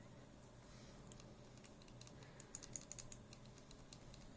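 Lubed and filmed MX-style mechanical keyboard switches pressed repeatedly without keycaps: a run of rapid, faint, light clicks starting about a second in. The lube and film keep them quiet.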